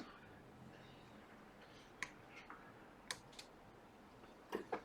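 A handful of short, sharp light clicks, about five, spaced irregularly over a quiet background, like small tools or a mouse clicking at a repair bench.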